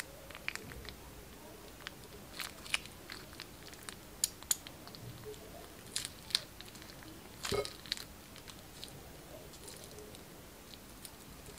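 Scattered sticky clicks and crackles from tiny beads in clear glue being squeezed out of a plastic piping bag and pressed onto a glass plate, with one louder crackle about seven and a half seconds in.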